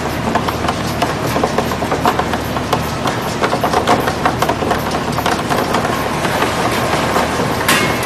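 Date size-grading machine running: a steady motor hum under dense, irregular clattering as dates tumble across the turning stainless steel rollers, with one sharper click near the end.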